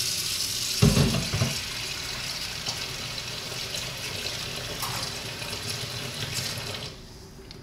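Kitchen tap running into the sink, filling a frying pan with water to soak off stuck-on egg, with a clunk about a second in. The water stops abruptly near the end as the tap is turned off.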